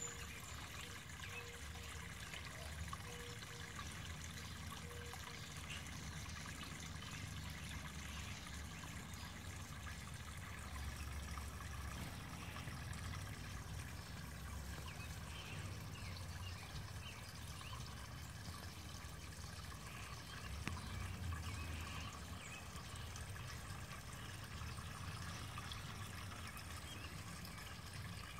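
Steady trickle of water running into a garden fish pond, with a low rumble underneath.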